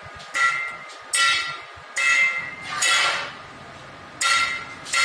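Hammer blows on steel, about five strikes at an uneven pace, each leaving a short metallic ring.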